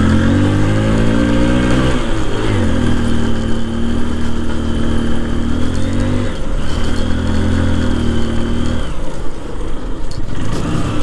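Motorcycle engine pulling under load up a steep hill road, climbing easily. Its revs rise at first and then hold steady, with short dips in pitch about two seconds and six and a half seconds in, before they fall away about nine seconds in.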